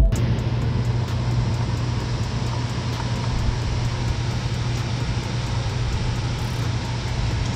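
Steady workshop background noise: a constant low hum under an even hiss, with no distinct tool strikes.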